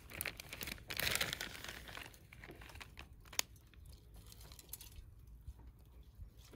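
Crinkling and rustling as something is handled, loudest about a second in, with a few scattered light clicks.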